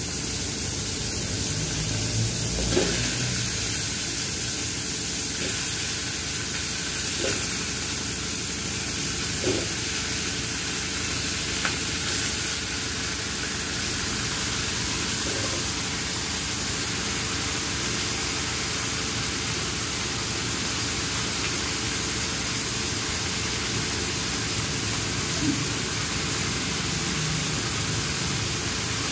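Steady sizzling hiss from tomato, onion and ginger frying in a wok as pieces of raw fish are laid in, with a few light knocks.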